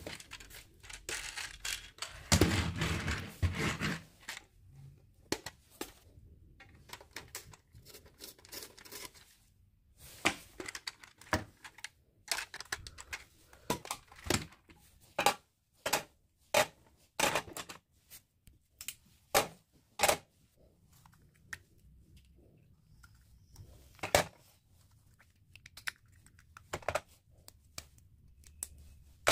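Hard plastic pencil box and its small plastic parts handled on a table. A loud rustling burst comes about two seconds in. After that there is a run of sharp plastic clicks and taps, mostly between about ten and twenty seconds in, with one more a little later.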